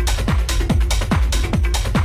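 Techno DJ mix: a steady four-on-the-floor kick drum, about two beats a second, each hit dropping quickly in pitch, over a constant bass, with hi-hats and percussion on top.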